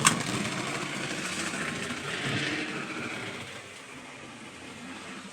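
HO scale Athearn rubber-band-drive model locomotive running along the track: a steady running sound of the motor and wheels on rail that swells and then eases off as it passes, after a sharp click at the start.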